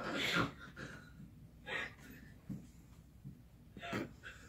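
Faint human breathing after laughter: a breathy exhale at the start, then a few short, quiet breaths.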